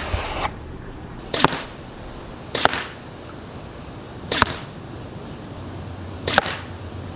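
Four arrows striking a bag archery target one after another, each a short, sharp thwack, the strikes a second or two apart.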